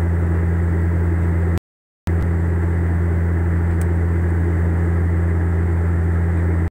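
Cabin drone of a Bombardier Q400 turboprop in flight, heard from a seat beside the engine: a steady low propeller hum over engine and airflow noise. The sound cuts out to silence for about half a second, about a second and a half in, and again at the end.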